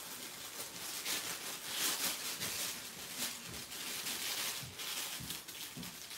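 Plastic piping bag crinkling and rustling as it is handled, with a few soft knocks about halfway through and near the end.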